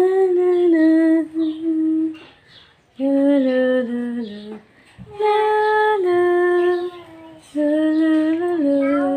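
A woman singing a lullaby unaccompanied, in four slow phrases of long held notes with short breaks between them.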